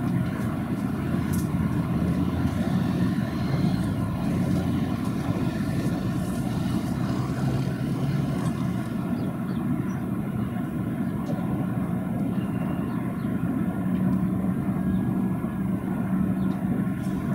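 Steady low engine rumble with faint low tones that come and go, without any clear rise, fall or sudden event.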